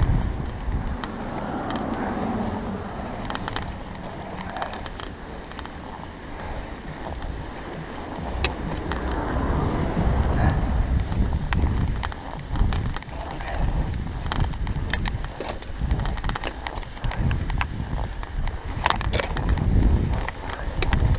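Bicycle ridden through fresh snow, with wind rumbling on the bike-mounted camera's microphone, rising and falling, and scattered clicks and rattles from the bike.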